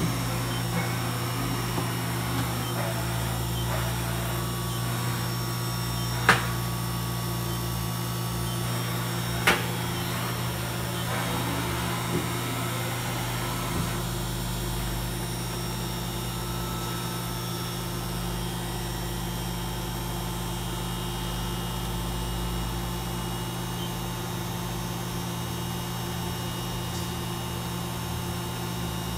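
Mori Seiki NV-5000 CNC vertical machining center running, a steady electrical hum and whine with its table traversing along the axes. Two sharp clicks stand out in the first ten seconds.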